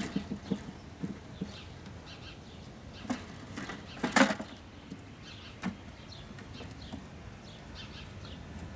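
Wooden beehive equipment being handled: scattered light knocks and one louder scraping rattle about four seconds in. Small birds chirp in the background.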